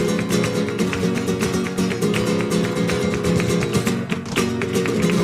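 Flamenco music: acoustic guitar playing over many sharp, rapid percussive strikes.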